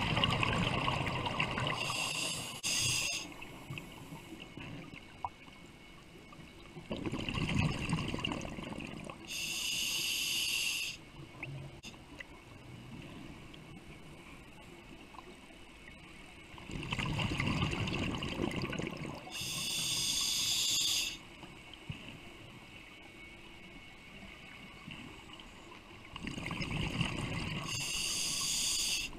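Scuba diver breathing through a regulator underwater: four breaths roughly nine seconds apart, each a burst of exhaust bubbles followed by a short hiss of the inhale.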